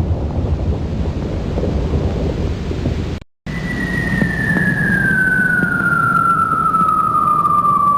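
Bomb-drop sound effect: a low rumble of an explosion runs until it cuts out abruptly about three seconds in. After a brief silence a single whistle begins, falling slowly and steadily in pitch over a rumbling bed, the whistle of a bomb dropping.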